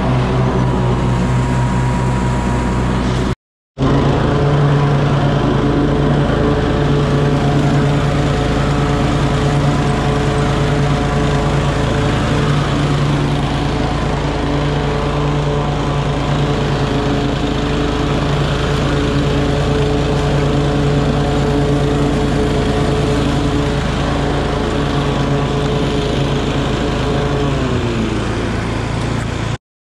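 Walk-behind lawn mower's small engine running steadily while mowing grass, its pitch dropping near the end as the engine slows. It is preceded by about three seconds of a stand-on mower's engine that cuts off abruptly.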